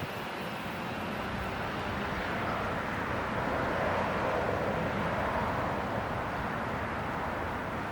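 Distant engine noise of something passing, a steady rushing hum that swells to its loudest about four seconds in and then eases off.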